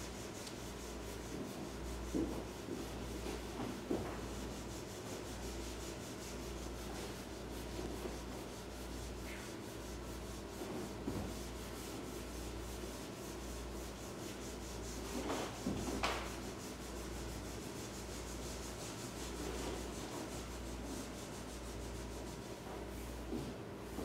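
Quiet room tone with a steady low hum and a few faint rubbing and rustling sounds, the loudest about 16 seconds in.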